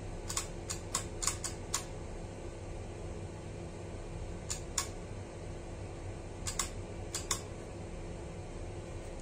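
About a dozen light, sharp clicks in three irregular groups, from handling the Bi-LED projector module and its wire leads while trying to power its high-beam shutter. A steady low hum runs underneath.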